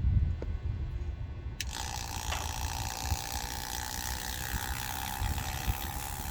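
Low handling knocks, then about a second and a half in a steady mechanical whirring with a held tone starts abruptly, from the pump refilling the front differential with thick gear oil.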